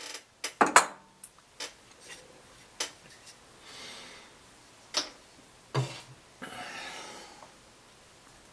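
Tools and small objects being picked up and set down on a wooden sculpting stand: a run of sharp clicks and knocks, loudest about half a second in, with two short spells of rustling as papers are handled.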